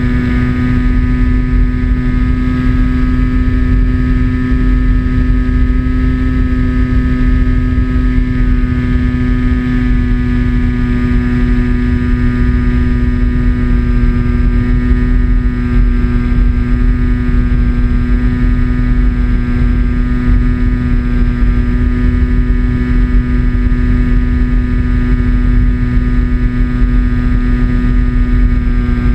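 Onboard sound of a radio-controlled model airplane in cruise: its motor and propeller running at a steady, unchanging pitch, over a low rushing rumble.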